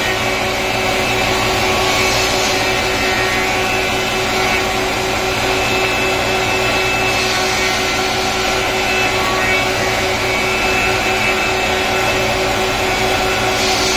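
Four-sided wood planer (moulder) running steadily: a constant motor hum with several steady tones over a dense hiss. The high hiss swells briefly a few times.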